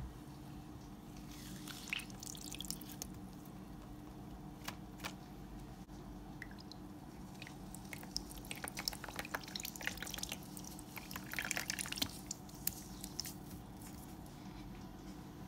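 Floral foam being crushed and crumbled by hand, some of it soaked in water, giving soft wet squishes and clusters of small crackles. The crackles are busiest from about eight to thirteen seconds in.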